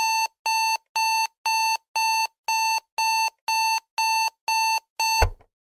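Electronic alarm-clock beeping that signals the countdown timer has reached zero: eleven short beeps at one steady pitch, about two a second. The last beep cuts off abruptly with a brief low thump.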